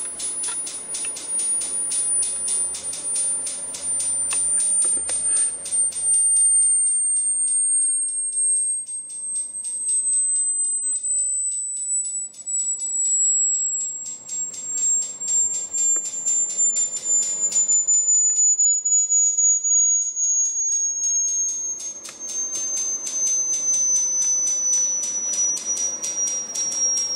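High, pure electronic test tone sweeping slowly and steadily down in pitch, with a fast, even pulsing over it, played to probe the resonance of a small concrete pyramid.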